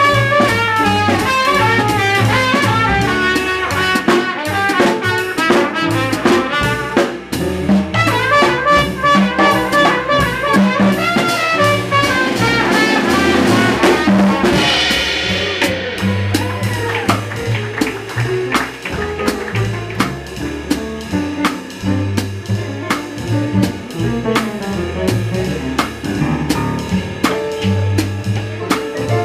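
Small hard-bop jazz group playing live: a trumpet line over walking double bass, piano and drum kit, with the drummer keeping time on the ride cymbal. About halfway there is a cymbal crash, after which the horn line thins out and the rhythm section carries on.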